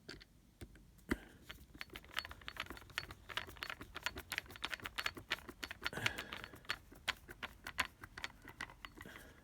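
Quick, irregular metallic clicking and rattling, several clicks a second, from a screwdriver and screws as the plastic case of a power supply is screwed back together.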